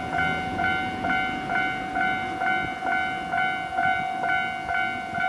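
Japanese railway level-crossing warning bell ringing steadily at about two strokes a second, with a low rumble underneath.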